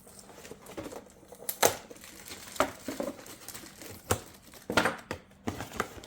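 Packaging being handled and crinkled while a remote control is unpacked from a box: irregular rustling with a handful of sharp crackles and clicks, the loudest about one and a half seconds in and near the end.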